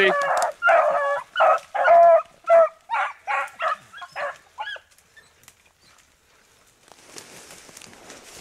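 Beagles baying on a rabbit's scent: a string of short bays, about two a second, that fade out about five seconds in as the pack runs the rabbit. Faint rustling in brush near the end.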